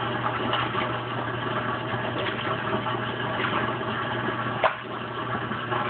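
Kenmore Oasis top-load washing machine running its self-test: the drain pump hums steadily as it pumps out the water while the washplate agitates a little, with a sharp click about four and a half seconds in.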